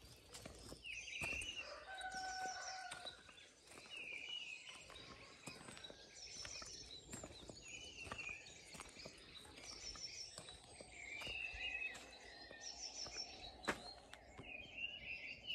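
Songbirds singing outdoors, short chirping phrases repeated every two to three seconds, faint against a quiet background with scattered light ticks and steps.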